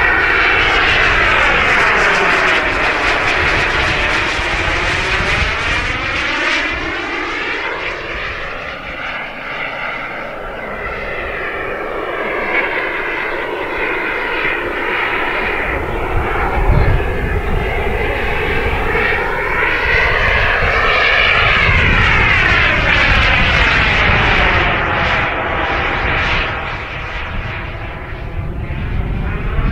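Kingtech K85 G4 turbine of a Hangar9 MB-339 model jet whining in flight, its pitch sweeping down and up again as the plane makes passes. It fades somewhat about a third of the way through and near the end, and is loudest as it comes back around.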